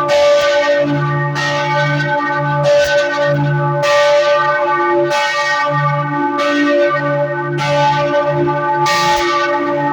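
Freiburg Minster's church bells ringing the midday peal: a bell stroke every second or so, each ringing on so that the strokes overlap into a continuous hum.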